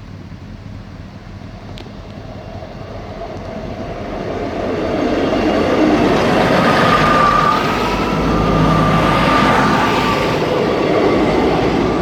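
Class 158 diesel multiple unit passing slowly over a level crossing, with trains held to caution after a reported crossing fault. Its noise builds from about four seconds in to a loud stretch of rumble and wheel-on-rail noise, with a thin steady whine over the second half.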